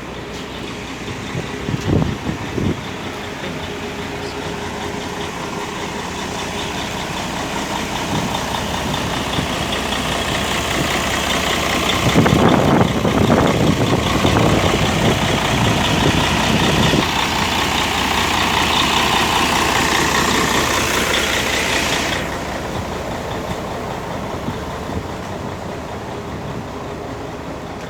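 Mercedes-Benz O-400 RSD coach's diesel engine running, heard from inside the bus. It builds up to a louder run for about ten seconds in the middle, then drops back abruptly to a steadier, quieter running.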